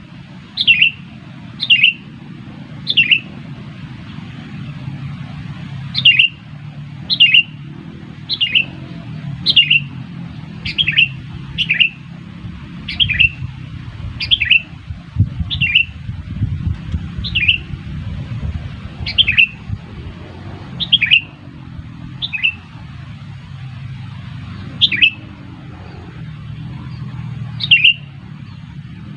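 Sooty-headed bulbul (kutilang) giving short, sharp call notes over and over, about one every one to two seconds, over a steady low rumble.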